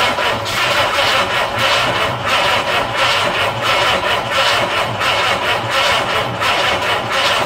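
Jaguar XK twin-cam straight-six being cranked on its starter motor, turning over with a steady rhythmic pulsing but not firing, until it cuts off suddenly at the end. It fails to catch because no fuel is yet reaching the newly fitted SU HD8 carburettors.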